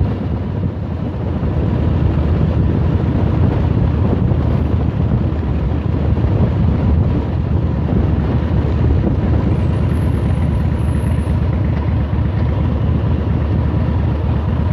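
Motorcycle riding at low speed: the engine's steady low rumble mixed with wind rushing over the bike-mounted phone's microphone.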